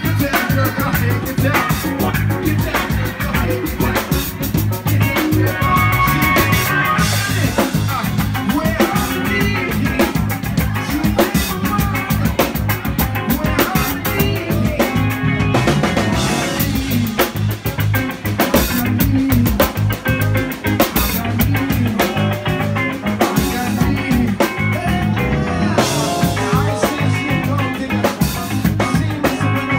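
Live rock band playing loud: electric guitar and a drum kit keeping a steady beat, with a singer over them.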